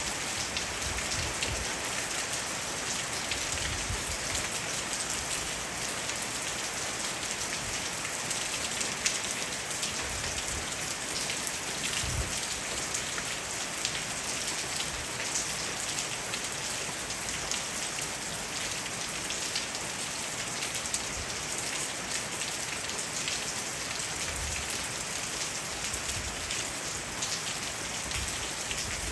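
Steady rain falling on a roof and leaves: an even hiss dotted with many small raindrop taps.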